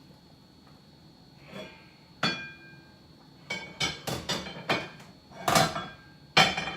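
Metal kitchen utensils and cookware clinking and knocking: one sharp ringing knock about two seconds in, then a quick run of clinks and clanks, the loudest near the end.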